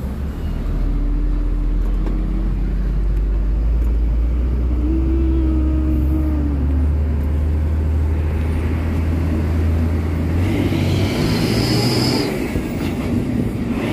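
Heavy diesel truck engine running with a steady low rumble. A faint whine comes and goes, and a higher hiss joins about ten seconds in.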